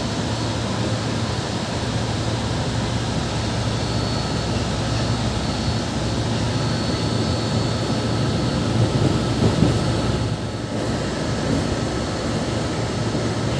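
Interior running noise of a KRL commuter electric train under way: steady wheel-on-rail rumble with a constant low motor hum, and a few louder knocks about nine seconds in.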